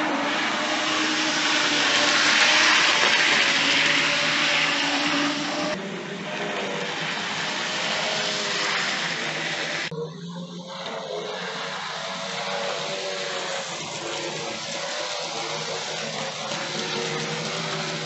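Hornby OO gauge 0-6-0 pannier tank model locomotive running on the track, its small electric motor giving a steady whir with the rattle of wheels on rail. It is louder for the first six seconds, then drops to a lower level after an abrupt change about ten seconds in.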